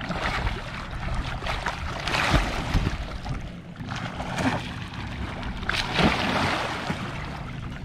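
Lake water splashing as a swimmer heaves himself onto a swamped plastic sit-in kayak and slips off backwards; the loudest splashes come about two seconds in and about six seconds in.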